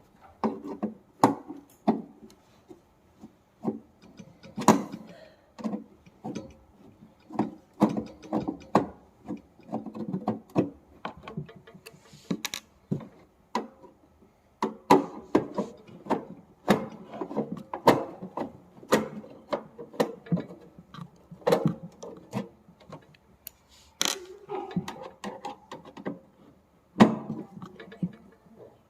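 Irregular clicks, taps and clatter of an electric room heater's casing and parts being handled and taken apart, with short rubbing scrapes between the knocks.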